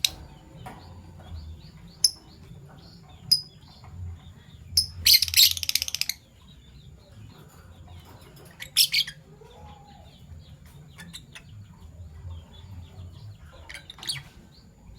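Fischer's lovebirds chirping in short, sharp calls, with a longer run of rapid chattering about five seconds in.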